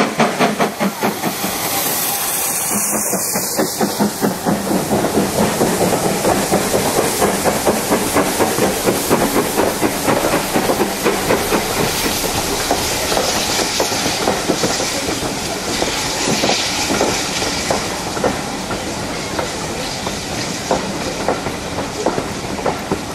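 Steam train passing close by: the locomotive's exhaust beats and steam hiss fade in the first second or so, then the coaches roll past with a steady clatter of wheels over the rail joints.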